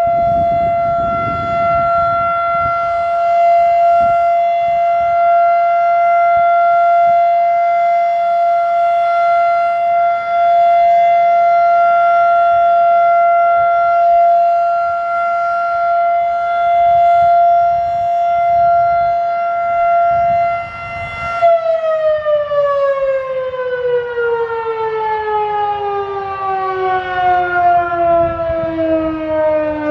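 Federal Sign & Signal Model 5 electromechanical siren sounding the steady full-alert tone at full speed, one held pitch with many overtones. About 21 seconds in, it is switched off and winds down, its pitch falling smoothly and steadily.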